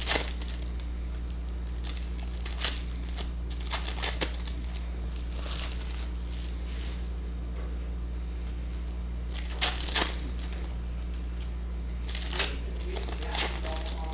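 Trading-card pack wrappers being handled and torn open: crinkling and tearing in scattered short bursts, over a steady low electrical hum.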